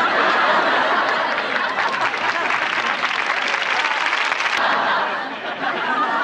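Studio audience laughing and applauding, a long sustained burst that dips briefly near the end.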